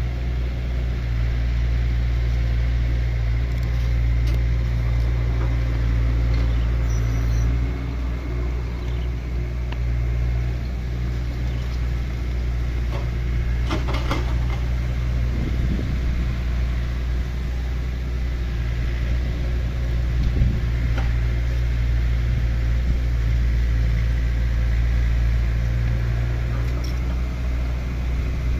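Excavator's diesel engine running steadily with a deep rumble, with a single metallic clank about halfway through and a lighter knock later.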